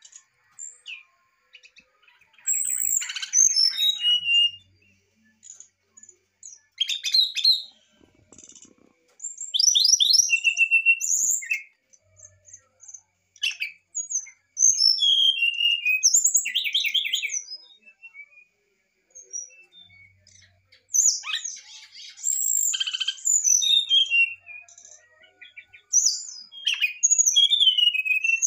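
Brown-chested jungle flycatcher singing: a string of short, varied whistled phrases, each about one to two seconds long and separated by pauses, some sliding up or down and some broken into fast trills.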